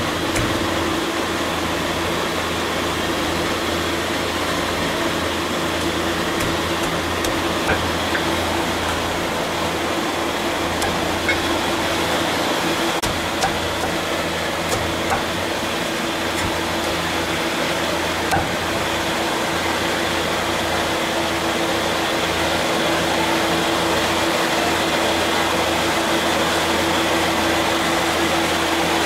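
Cleaver chopping roast chicken on a wooden chopping block: a few sharp knocks, mostly in the middle of the stretch, over a steady machine hum with a constant tone.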